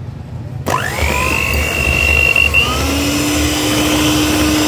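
Electric stand mixer beating cake batter. Less than a second in its motor speeds up with a quickly rising whine, then runs steadily at high speed, with a lower hum joining about three seconds in.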